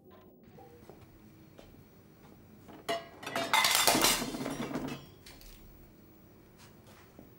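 Dishes and cutlery clattering at a kitchen counter: a sharp knock about three seconds in, then about a second and a half of dense clinking and rattling, with a few faint clicks before and after.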